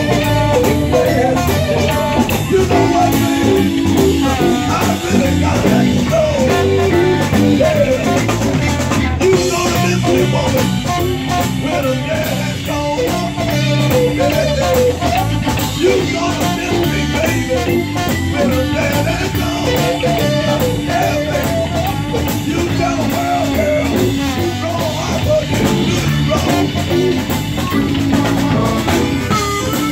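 Live blues band playing, with electric guitar, electric bass and drum kit. A blues harmonica comes in near the end.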